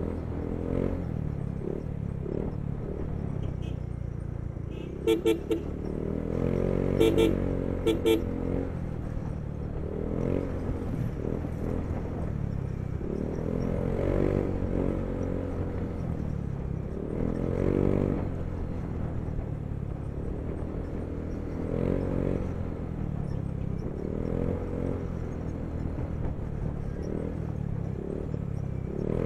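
Yamaha Mio i 125 scooter's single-cylinder engine running under way with wind noise, its pitch rising and falling with the throttle. A horn beeps twice quickly about five seconds in, then a few more short beeps about seven to eight seconds in.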